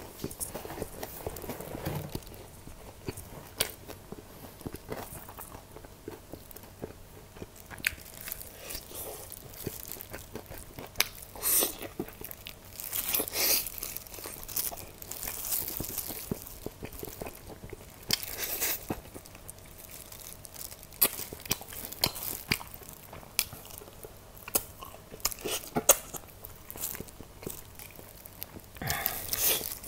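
Close-miked crunching bites and chewing of fried chicken, in irregular bursts with a few louder crunches.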